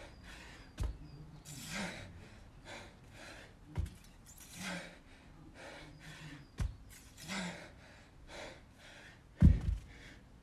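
Hard, fast breathing of a man in the middle of a gruelling workout, with a loud exhale about every second. A 50 lb dumbbell thuds down on the rubber floor mat four times between alternating snatches, loudest near the end.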